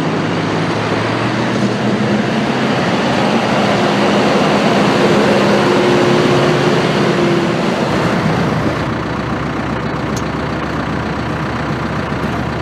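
John Deere 5085E's four-cylinder turbo diesel engine running as the tractor drives past, loudest about midway. About eight seconds in, the sound changes abruptly to a steadier, deeper engine idle.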